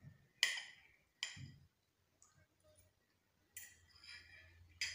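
Metal fork clinking against a ceramic plate several times, sharp short clinks with a little ringing, as a piece of the rice cake is cut off with it.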